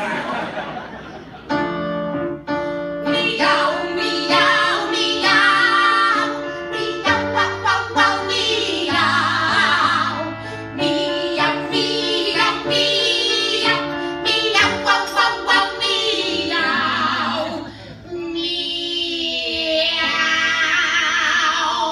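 Female voices singing a duet with wide vibrato, over held chords on an electronic keyboard.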